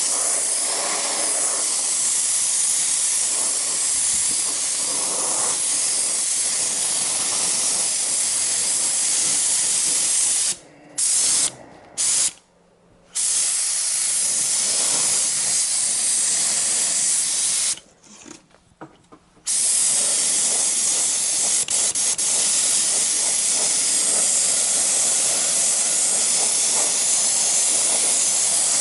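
Compressed-air paint spray gun hissing steadily as top coat is sprayed on, with the trigger let go for short breaks about a third of the way in and again about two-thirds in.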